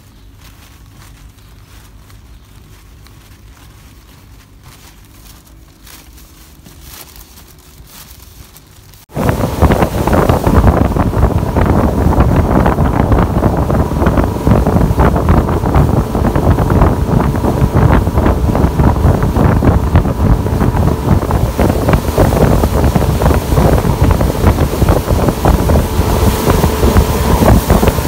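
A faint low hum for about nine seconds, then a sudden cut to loud, steady wind buffeting the microphone on a motorboat running at high speed, with water rushing and splashing along the hull.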